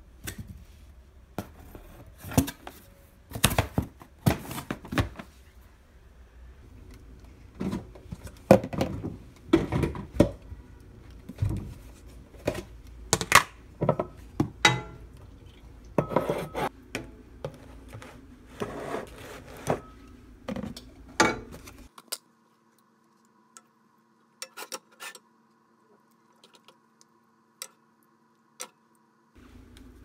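Dishes and plastic food containers being handled on a kitchen counter: a run of clattering knocks and clicks as containers, lids and a ceramic bowl are set down and moved. About two-thirds of the way in it drops to a faint steady hum with a few light clicks.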